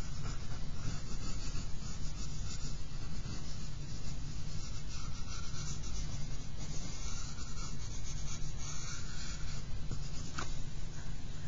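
Pencil scratching and rubbing across charcoal-toned drawing paper in many quick short strokes, over a steady low hum.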